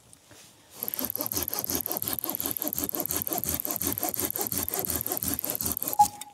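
Felco 640 folding pruning saw cutting through a dry spruce log in quick, even back-and-forth strokes, with a thin high whine over them. It starts about a second in and stops with a short beep about six seconds in.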